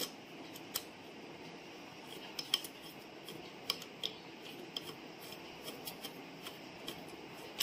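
Scattered small metal clicks and ticks, a dozen or so at irregular intervals, as the knurled thumb nut of a sewing machine's thread tension assembly is screwed by hand onto its stud, tightening it down on the tension spring and discs.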